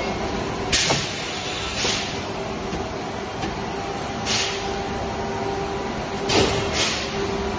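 PVC bag-making machine running with a steady hum, broken by about five short hisses of air from its pneumatic cylinders.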